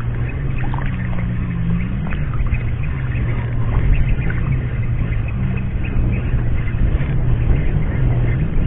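A motor running with a steady low hum throughout, over a wash of wind and water noise, with scattered faint light ticks.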